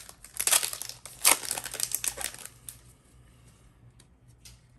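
Foil wrapper of a 2015 Panini Contenders football card pack being torn open and crinkled, with the sharpest rip about a second in. After about two and a half seconds it dies down to a few faint ticks as the cards are handled.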